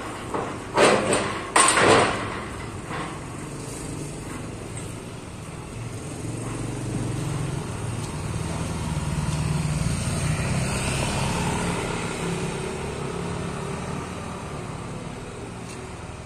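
A tall steel gate clanks and rattles a few times as it is pushed open, about one to two seconds in. A motor vehicle's engine then runs, growing louder to about ten seconds in and fading away.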